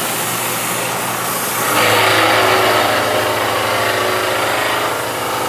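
Milling machine running as it takes a cut in a steel vise jaw. About two seconds in it grows louder and a steady whine sets in as the cutter bites into the metal.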